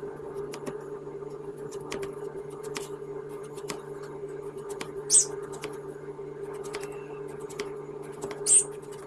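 A pet bird gives two loud, sharp high squeaky calls, about five seconds in and near the end, over a run of light clicks and taps and a steady low hum.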